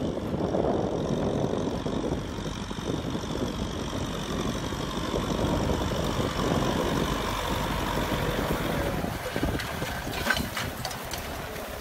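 Kubota M6040SU tractor's diesel engine running steadily under load while pulling a disc plow through dry soil. A few sharp clicks and knocks come through about ten seconds in.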